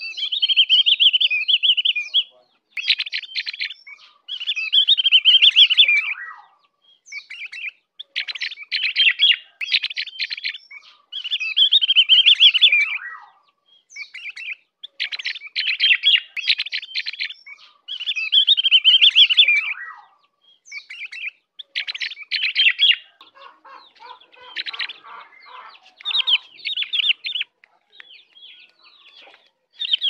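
Ovior songbird singing: repeated phrases of about two seconds of rapid, high chattering notes, separated by short pauses. About three-quarters of the way through the song turns to a softer, lower twitter.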